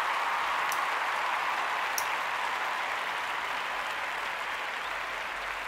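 Steady hiss of background noise, with two faint clicks, one under a second in and one at about two seconds.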